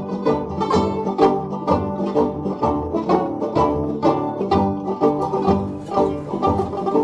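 Background music: an upbeat acoustic string tune with a quick, steady run of picked notes.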